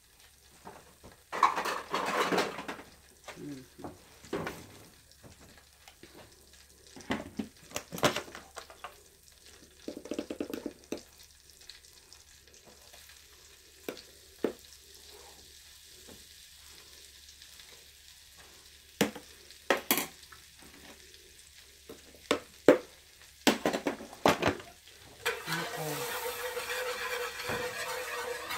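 Scattered knocks and clicks of kitchen utensils and pans, then, about 25 seconds in, a wire whisk starts stirring flour into melted butter in a ceramic-coated pan, a steady busy rubbing noise as the roux is mixed.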